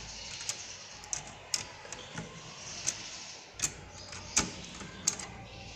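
Screwdriver and hands working a CPU heat sink loose from a computer motherboard: scattered clicks and knocks of tool and metal fasteners, the loudest a little past four seconds in.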